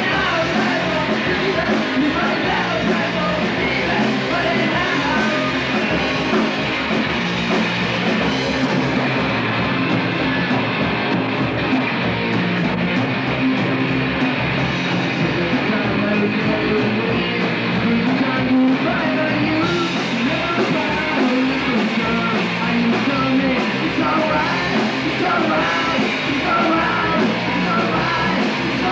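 Loud, steady punk rock music: a band playing with a sung vocal over a driving beat.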